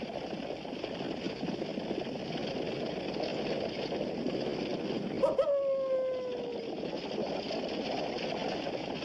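Film soundtrack of a night desert scene. A steady rumbling noise runs under everything. About five seconds in a short click is heard, then a single long howl-like call that slides slowly down in pitch.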